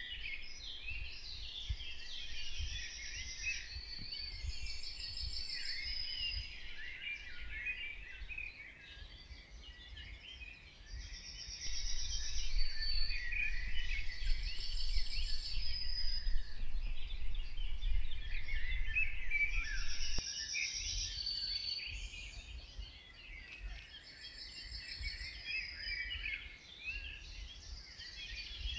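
Many songbirds singing together in woodland, a dense, overlapping chorus with repeated fast trills. A low rumble underneath grows louder for several seconds in the middle.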